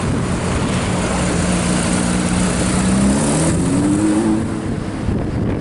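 Sports car engine driving past. Its note holds steady, then rises in pitch as it accelerates over a couple of seconds in the middle, and fades away about four and a half seconds in.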